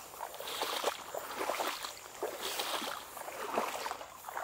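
Someone wading through shallow marsh water among tall grass: irregular sloshing steps, with grass brushing and rustling against the legs.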